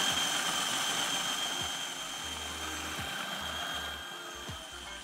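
Electric food processor running, blending soft white cheese with pastrami: a steady motor whir with a high whine, growing steadily quieter.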